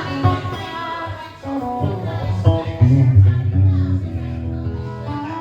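Music with guitar, a strong bass line and a singing voice.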